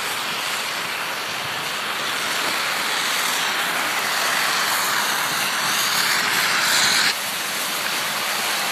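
Steady rushing noise of skiing downhill: wind on the microphone and skis sliding over packed snow. It builds gradually, then drops sharply about seven seconds in.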